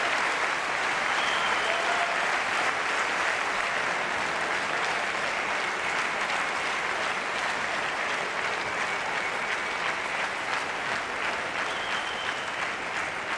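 Large arena crowd applauding steadily, a dense patter of many hands clapping that eases slightly toward the end.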